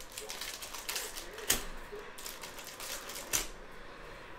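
Foil trading-card pack being torn open by hand: crinkling and tearing of the foil wrapper, with two sharp cracks, one about a second and a half in and one about two seconds later.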